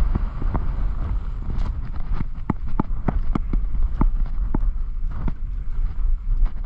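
Wind buffeting a moving action camera's microphone during a downhill ski run, a steady low rumble. About two seconds in comes a run of sharp clicks, roughly three a second, that stops about five seconds in.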